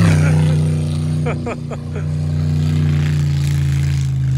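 Ford pickup truck's engine running hard at steady high revs as it spins its wheels through deep snow while towing a boat, with a brief dip in the engine note about a second and a half in.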